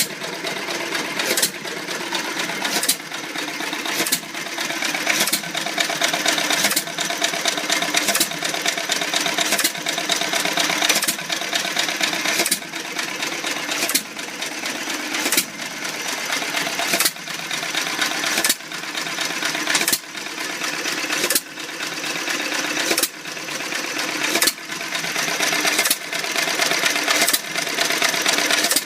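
Freshly rebuilt antique stationary engine running on its first run, with a sharp bang about every second and a half and a fast mechanical clatter from the running gear in between.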